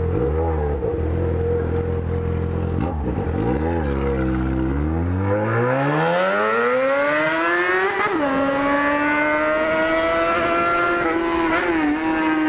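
Yamaha XJ6's inline-four motorcycle engine idling with two quick throttle blips, then revving up in one smooth rise and holding at high revs with a couple of small dips near the end.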